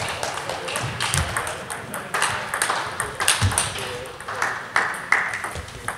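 Table tennis balls clicking against bats and tables in quick, irregular hits from rallies at several tables at once.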